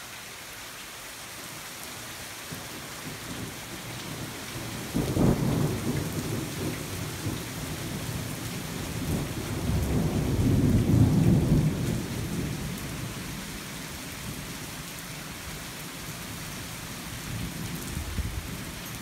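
Thunderstorm: steady rain hissing, with a sudden clap of thunder about five seconds in that rolls into a long low rumble, loudest around the middle, then fading away.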